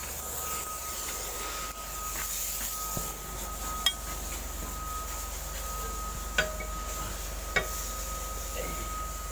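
Three sharp metallic clinks, each with a short ring, spread over a few seconds, over a steady mechanical hum with a high whine in the background.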